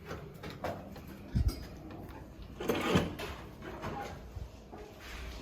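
Hotel room door being opened: a low thump about a second and a half in, then a clatter of the handle and latch around three seconds in, with small clicks in between.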